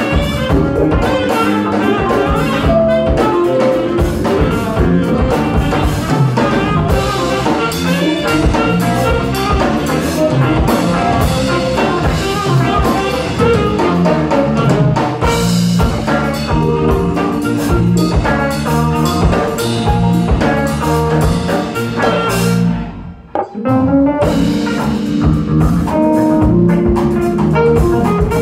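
A live jazz band plays: saxophone, electric guitar, bass guitar, drum kit and keyboard. About 23 seconds in, the band stops briefly, then comes back in.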